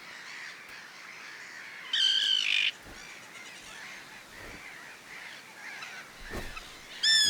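Common tern colony calling: one loud harsh call lasting under a second about two seconds in, and another starting near the end, over fainter calling from the colony in between.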